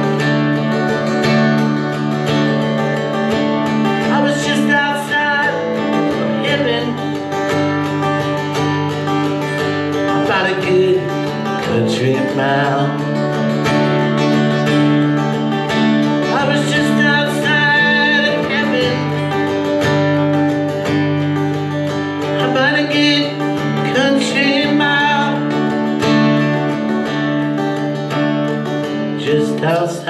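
Steel-string acoustic guitar strummed steadily through an instrumental passage of a live solo song, with a higher melodic line bending in pitch over the chords now and then.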